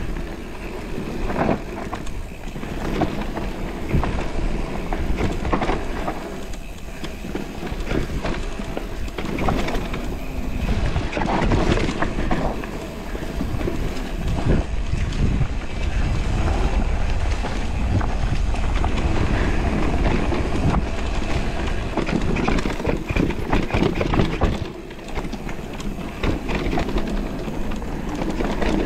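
Electric mountain bike running fast down a dirt forest singletrack: tyres on dirt and leaf litter, with the chain and frame rattling and knocking over bumps. Wind buffets the bike-mounted camera's microphone.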